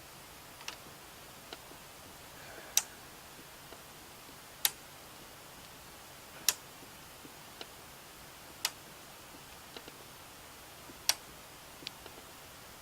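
Sharp, irregular clicks, the loudest about every two seconds, as screws are forced through a plastic fan filter into a PC case fan.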